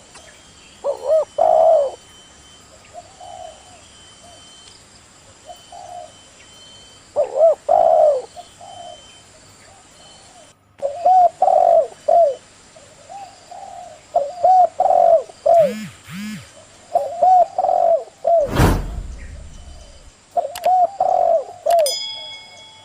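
A dove cooing over and over in short, arched phrases. A single loud knock cuts across it about three quarters of the way through.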